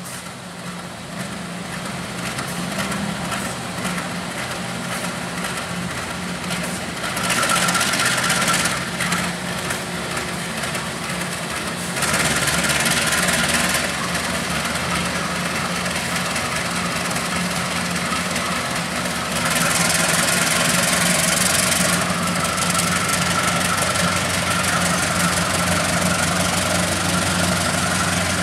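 KAI CC 203 diesel-electric locomotive's engine running under power as it pulls the train away, growing louder, with three spells of louder hiss about 7, 12 and 20 seconds in.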